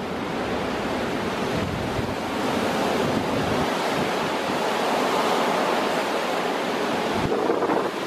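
Shallow, fast-flowing creek rushing over rocks in a steady wash, with gusty wind buffeting the microphone in an uneven low rumble.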